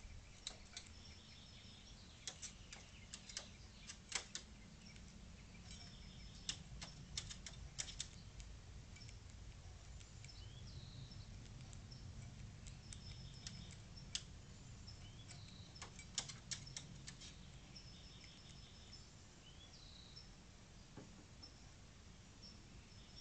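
Crow pecking at dry food on a plate on a plastic table: clusters of sharp beak clicks and taps through roughly the first two thirds, then only a stray one. Small birds chirp faintly in the background over a low steady rumble.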